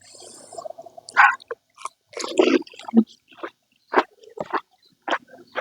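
Close-up eating of panipuri: crisp hollow puris filled with spiced water, crunched and chewed in a string of short, irregular bites and wet mouth sounds.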